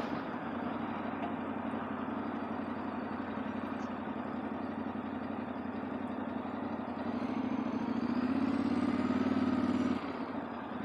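Yamaha Ténéré 700's 689 cc parallel-twin engine running at low speed, with wind and road noise. It gets louder for a few seconds near the end, then eases off.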